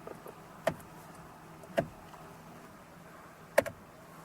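A few sharp, irregularly spaced clicks from the Jeep Wrangler JK's new turn signal (multifunction) switch stalk being worked, switching between the high beams and the turn signal, with a quick double click near the end.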